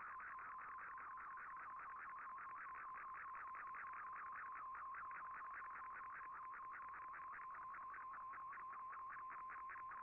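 A shortwave radio data signal sending a colour picture in MFSK image mode, decoded in Fldigi. It sounds as a steady tone with rapid chirps sweeping upward over it, about five a second, in an even warbling rhythm.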